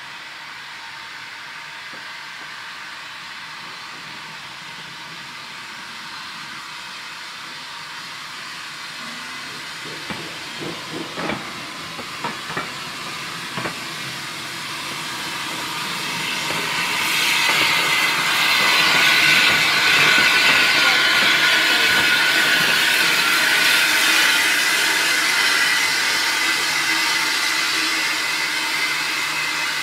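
A steam-hauled passenger train passing. Its wheels give a run of sharp knocks over the rail joints and pointwork. Then a loud steam hiss swells up about halfway through and slowly eases off near the end.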